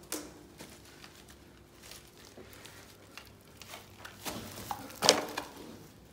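Footsteps crunching through dry leaves and broken board debris on a floor, with small crackles between steps and two sharper crunches about four and five seconds in, the second the loudest.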